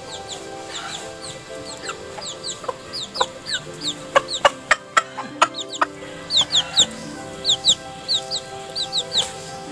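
Chickens clucking and a chick peeping in quick, high, falling chirps, over background music with sustained notes. A run of sharp clicks comes in about the middle.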